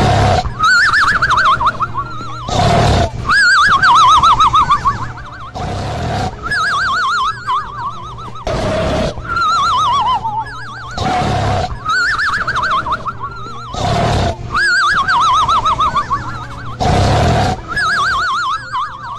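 Snoring in a steady cycle about every three seconds: a short rasping breath, then a wavering, falling whistle that sounds like a horse's whinny.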